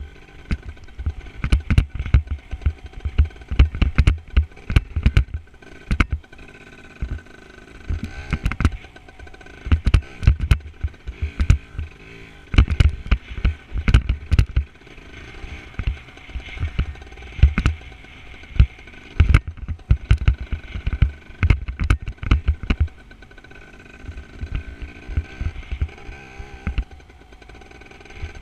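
Off-road motorcycle ridden along a dirt track, its engine running steadily beneath loud, irregular wind buffeting on the microphone.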